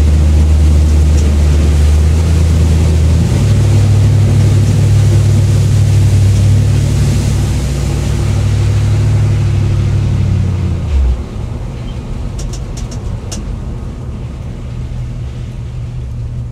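Truck engine running under load, heard from inside the cab; its note steps up about three seconds in, then falls away to a much quieter, lower running at about eleven seconds as the throttle is let off.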